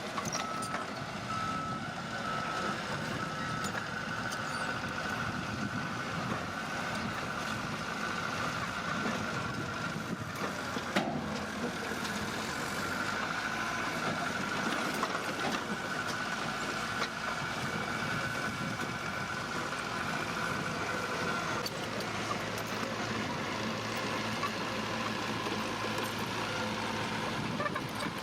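Heavy earthmoving machinery running steadily, with a high reversing alarm sounding for much of the time. There is one sharp knock about eleven seconds in.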